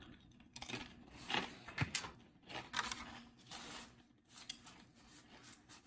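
Close-up mukbang eating sounds: irregular chewing with short crinkly rustles and light clicks.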